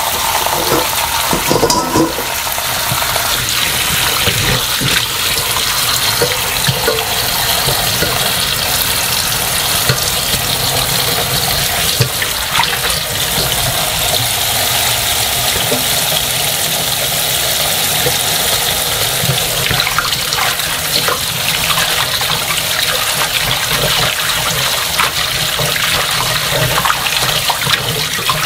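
Cold tap water running steadily into a basin while salted young radish greens are rinsed in it by hand, with the odd light knock against the basin.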